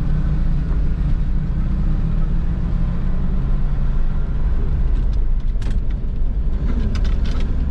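Farm grain truck's engine running steadily while driving, a low rumble heard from inside the cab, with a few short clicks about five to seven seconds in.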